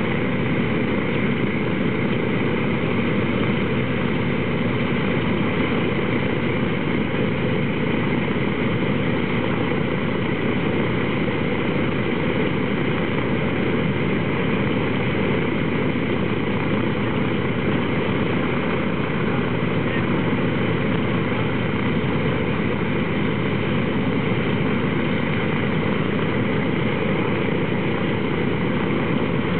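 Boeing B-29 Superfortress's Wright R-3350 eighteen-cylinder radial engines idling steadily, propellers turning.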